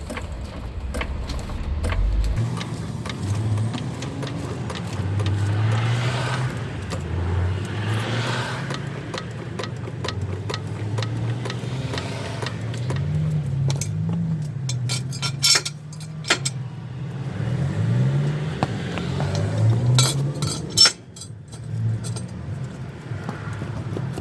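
A car engine running, its pitch rising and falling a few times, with sharp metallic clinks, a cluster about two-thirds of the way through and another near the end.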